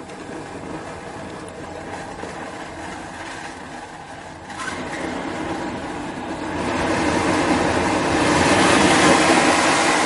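Hair dryer running with its heating element overdriven and the fan slowed, so flames blow out of the nozzle: a steady rushing noise. It steps up about four and a half seconds in and swells louder over the last few seconds.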